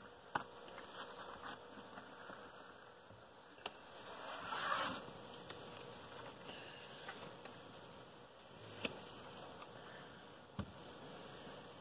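A deck of playing cards being swept up from a ribbon spread on a cloth playmat and handled in the hands: soft card-sliding and rustling, louder for a moment about four to five seconds in, with a few sharp taps as the cards are squared.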